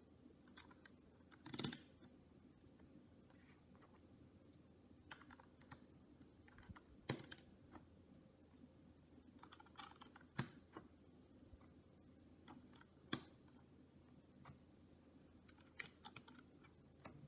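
Faint clicks and taps of plastic LEGO bricks being handled and pressed onto a build, with a few sharper snaps about a second and a half in and again at roughly seven, ten and thirteen seconds.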